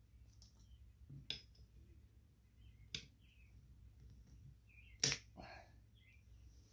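Side cutters working at an old rubber valve stem in a steel wheel rim: three sharp clicks about two seconds apart, the third the loudest and followed by a softer one.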